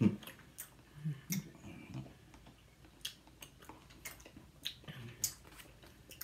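People chewing chewy candy close to the microphone: scattered, irregular soft mouth clicks and smacks.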